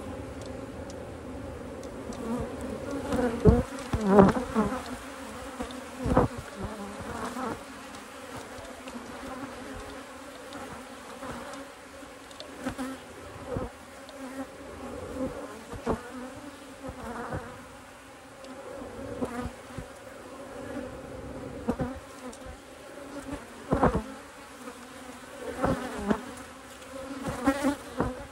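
Honeybees buzzing in a steady hum around an open hive, with sharp knocks and clicks now and then, loudest a few seconds in and again near the end.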